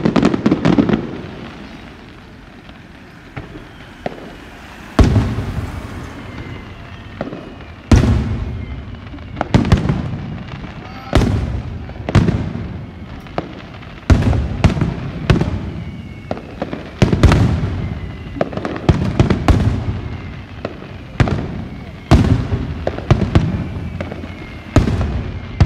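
Aerial firework shells bursting with loud booms, each trailing off over about a second. A cluster of bursts right at the start, a lull of a few seconds, then a rapid finale barrage with a boom about every second.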